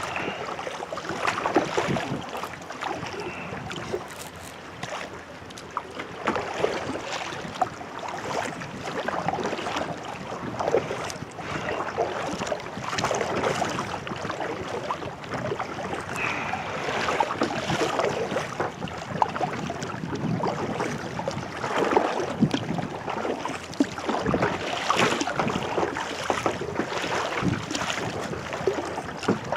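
Water splashing and sloshing around a kayak out on the sea, with irregular louder surges every second or few, mixed with wind buffeting the microphone.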